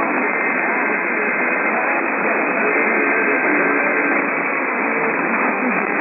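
AM radio reception of a weak station: steady loud static and hiss, with faint voices showing through underneath.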